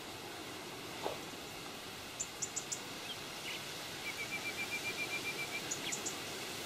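Small birds calling over a steady outdoor hiss: a few quick groups of short, very high chirps, and a rapid, even trill lasting about a second and a half, starting about four seconds in.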